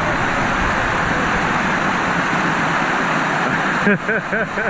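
Steady rush of water splashing at a water slide's run-out pool. Near the end a person's voice cuts in briefly with a few quick rising-and-falling calls.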